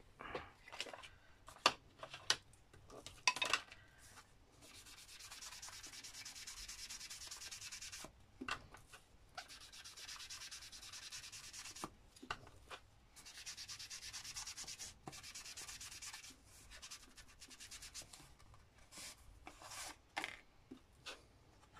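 Ink being rubbed onto paper in quick scrubbing strokes, blended over the page to darken it. There are three stretches of steady rubbing, a few seconds each, with light taps and clicks of handling paper before and after.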